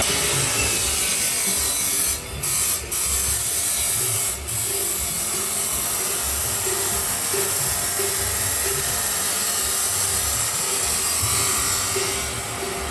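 Grinder cutting through stainless steel pipe: a steady, high-pitched grinding hiss that drops out briefly three times a couple of seconds in and eases off near the end.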